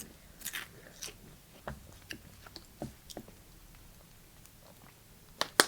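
A person chewing a crunchy snack close to the microphone: irregular soft crunches, with two sharper, louder crunches near the end.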